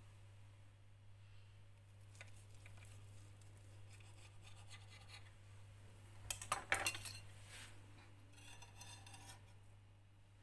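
A metal knife and cake server click and scrape against a serving board as a slice of cake is cut and lifted. A quick cluster of clicks about six seconds in is the loudest sound, followed by softer scraping. A low steady hum sits underneath.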